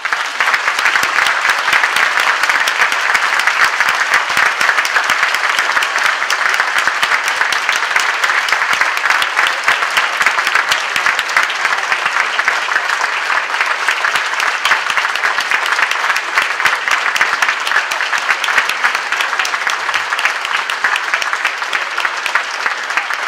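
Large audience applauding, a dense steady clapping of many hands that cuts off suddenly at the end.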